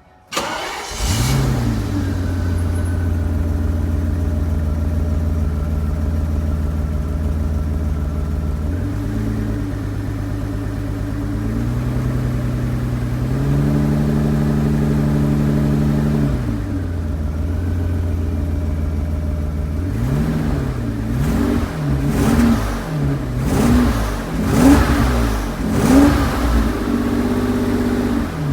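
BMW E32 750's M70 V12 engine catching and settling into an idle, which the owner calls rough and suspects is running rich with wet, sooty plugs. It holds a higher steady speed for several seconds midway, drops back to idle, then is blipped up and down repeatedly in the last third.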